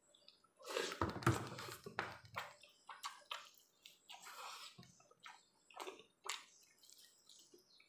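Wet slurping and mouth sounds of a person eating gravy-soaked rice and chicken curry by hand, loudest about a second in, followed by a string of short lip smacks.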